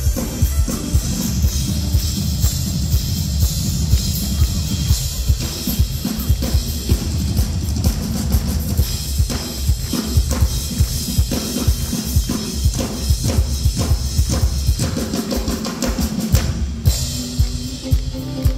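Live band playing an instrumental passage through a PA: drum kit keeping a steady beat with acoustic guitar and violin, the drum hits coming thicker through the second half.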